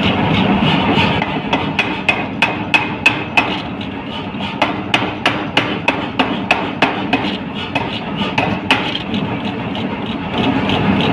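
Power hammer striking hot steel in a steady run of sharp blows, about three a second, over the constant hum of the running machine, while forging an axe head.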